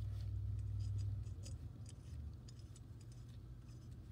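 Faint small clicks and scratching of gloved hands handling a Mikuni carburetor while its main jet is threaded in by hand, over a low rumble that fades after about a second.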